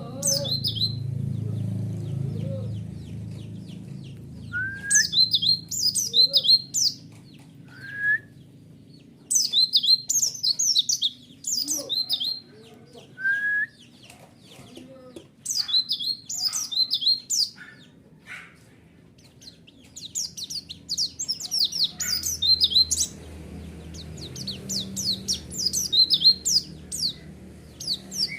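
White-eye (pleci) song: bouts of rapid, high twittering notes a second or two long with short pauses between, and now and then a single lower whistled note.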